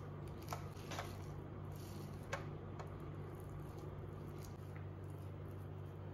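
Metal spoon scooping and packing minced-meat filling into a hollowed bell pepper: a handful of short clicks of the spoon and soft squishing of the stuffing, over a steady low hum.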